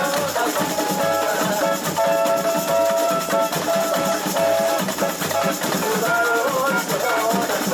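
Live samba music from a samba band: the percussion section's drums and shakers keeping a dense, steady groove, with held melody notes over it.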